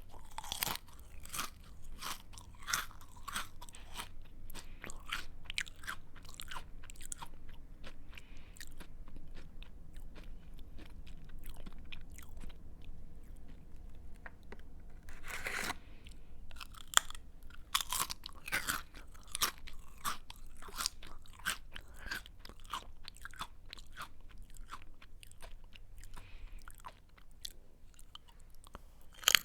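Close-up chewing of a crunchy snack: a steady run of crisp crunches, with a louder bite about halfway through.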